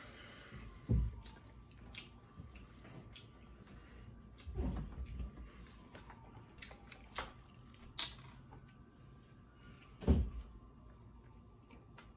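A few dull knocks and bumps on a wooden table, about a second in, around four and a half seconds and loudest about ten seconds in, among small scattered clicks of plates and food being handled while eating.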